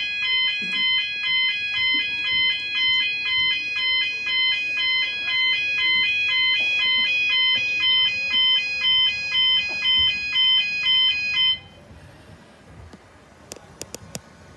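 Level crossing audible warning alarm sounding in loud, even electronic pulses as the crossing lights come on and the barriers lower. It signals that the crossing is closing, and it cuts off abruptly about three seconds before the end.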